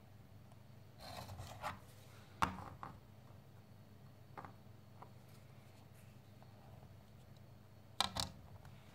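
Wooden ice cream sticks and a plastic ruler being handled on a tabletop: soft rubbing, a few light clicks and taps, with the sharpest pair of clicks close together near the end.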